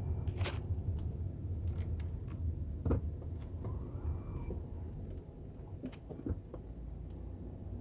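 Volkswagen car with a steady low rumble and a few sharp clicks, and a brief faint high beep a little after four seconds in: the unexplained beep the owner is chasing as a fault.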